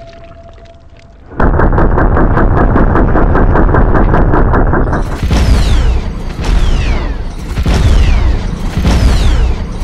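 M134 minigun firing 7.62×51 rounds: a deep, rapid rattle that starts suddenly about a second and a half in. From about five seconds it turns to repeated heavy booms, each with a falling whistle, about once a second.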